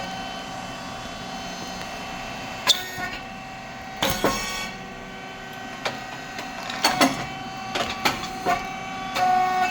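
Rice cake popping machine running with a steady hum and whine, broken by sharp mechanical clicks and a louder pop with a brief hiss about four seconds in.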